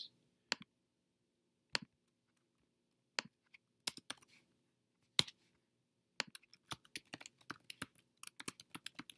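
Keys clicking on a computer keyboard. There are a few scattered clicks over the first five seconds, then steady typing from about six seconds in.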